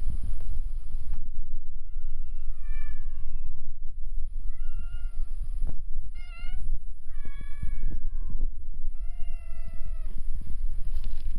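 Domestic cat meowing repeatedly, about five meows, some drawn out and falling in pitch, over a steady low rumble on the microphone.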